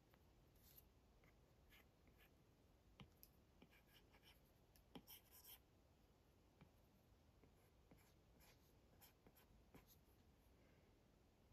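Faint Apple Pencil sketching on an iPad screen: short scratchy strokes and light taps of the pencil tip, with a cluster of louder taps about five seconds in.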